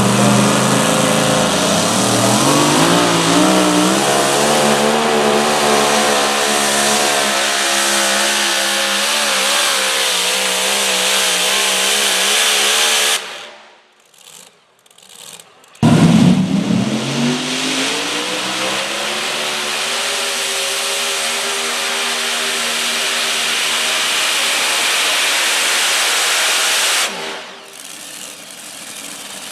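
Modified two-wheel-drive pulling truck's engine at full throttle under load as it drags the sled, its pitch climbing and wavering as the wheels spin. It cuts out about 13 s in, and after a short near-silence a second pulling engine comes in at full throttle, pitch again climbing, then drops away a couple of seconds before the end.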